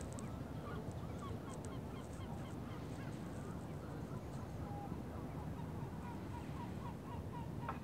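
Birds calling over and over in short honking calls, with a steady low background noise beneath. A short knock near the end.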